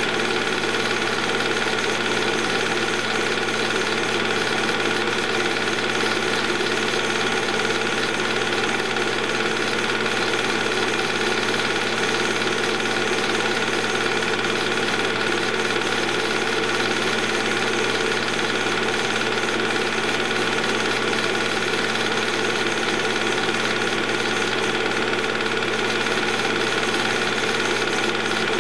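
Movie projector running steadily: the very loud, continuous mechanical noise of its motor and film mechanism, the only sound on a silent home movie.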